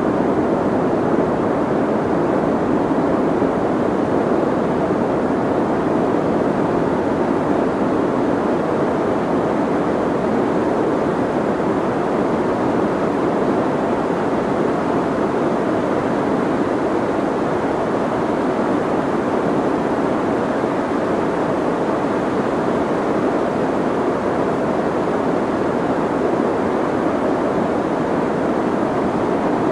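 Soft, steady white noise, muffled, with most of its energy in the low-mid range and little hiss above; unchanging throughout.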